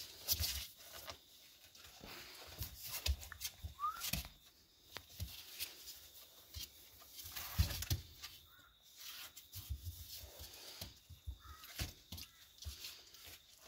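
Three-week-old Maremma sheepdog puppies scrabbling and tussling on a blanket in a cardboard box: scattered rustles, scratches and soft knocks, with a brief rising squeak about four seconds in.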